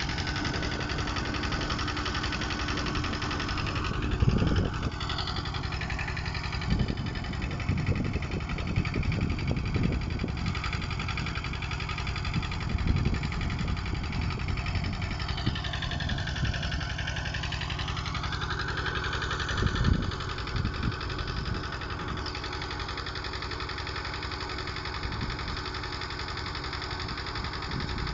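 A machine's engine running steadily with a deep hum, and irregular low knocks and thumps over it.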